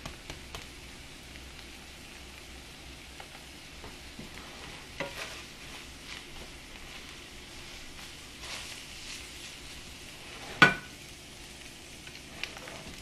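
Omelette sizzling faintly in a ceramic-coated frying pan while a plastic spatula scrapes under it and lifts the quarters out, with small scattered clicks. About ten and a half seconds in, one sharp, ringing clack, much louder than the rest.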